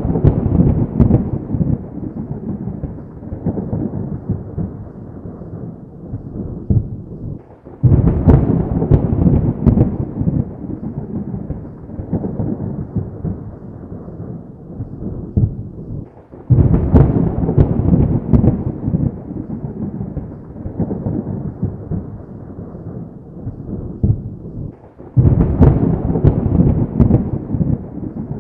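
Thunder: three sudden claps about nine seconds apart. Each starts with a sharp crack and rolls off into a long low rumble that carries on until the next.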